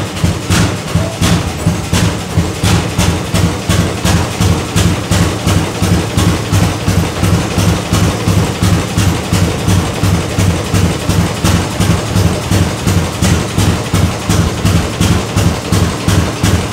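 Large antique tractor engine idling slowly and evenly, each firing heard as a distinct beat about three times a second.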